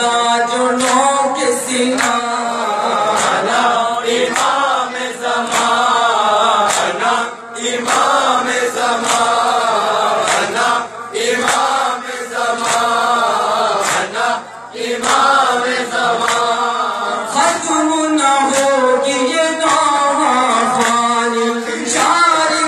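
Men chanting a nauha, a Shia lament for Imam Hussain, unaccompanied by instruments, with sharp slaps of hands beating on chests (matam) scattered through the chant.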